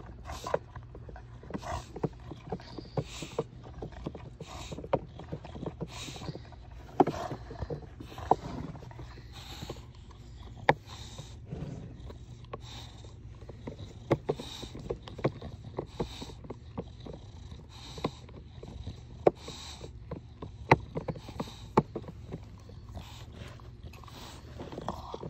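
An English bulldog gnawing on a plastic child's booster seat: irregular sharp clicks and knocks of teeth on the hard plastic, with short hissy breaths between them.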